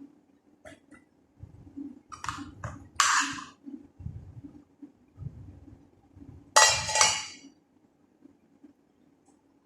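Dishes and utensils clinking and clattering in a kitchen: a few sharp knocks, a loud clatter about three seconds in and a ringing clatter about six and a half seconds in, with duller thuds between. A faint steady low hum runs underneath.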